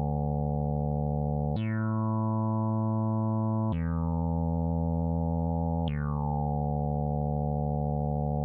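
Background music of held chords that change about every two seconds, each change marked by a quick falling sweep.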